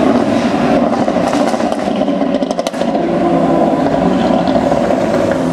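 Audi RS3 8V's turbocharged five-cylinder engine running through a full Milltek exhaust, its pitch shifting, with a short cluster of crackles about halfway through as the level briefly dips.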